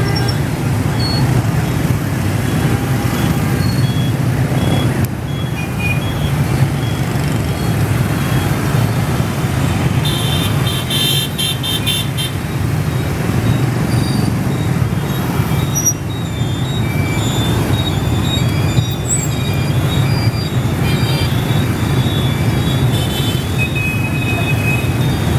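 Dense motorbike and scooter traffic running steadily, with horns tooting again and again. A cluster of several horns sounds together about ten seconds in.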